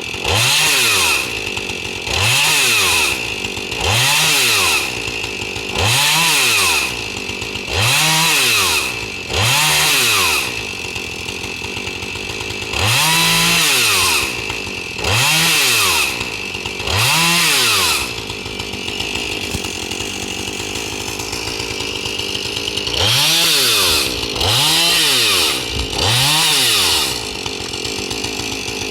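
Chainsaw engine revved up and let back down about a dozen times, each rev lasting about a second, with a few seconds of idling between the middle revs.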